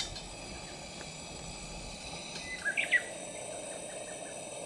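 Outdoor insects calling steadily, with a short run of bird chirps a little before three seconds in, the loudest sound.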